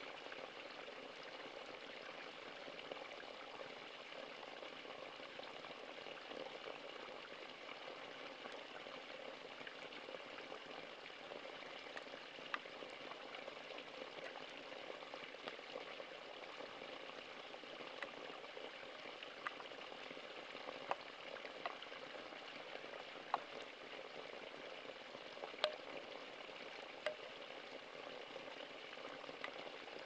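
Thin stream of spring water falling from a spout onto rocks: a steady trickling splash, with a few sharp plinks in the second half.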